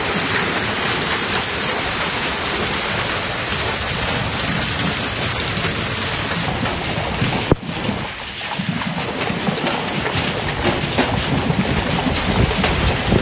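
Heavy rain pelting down in a thunderstorm, a steady dense hiss of drops with a low rumble underneath. About six and a half seconds in, the sound changes abruptly to a denser patter of fine ticks, and a sharp knock follows about a second later.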